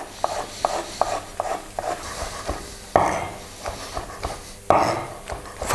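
Chef's knife slicing shiitake mushrooms on a wooden cutting board: a quick, even run of light knife taps on the board, about four or five a second. Two louder knocks follow, about three seconds in and again near the end.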